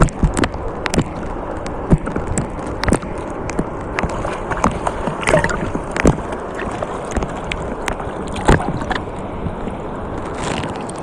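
Seawater sloshing and splashing close to the microphone, with many sharp clicks and knocks scattered through it.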